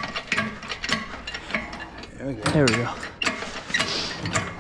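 Engine hoist and its lifting chain clicking and clanking at a quick, even rhythm, about three clicks a second, as the hoist is worked to lift an engine. A louder wavering, pitched sound comes about halfway through.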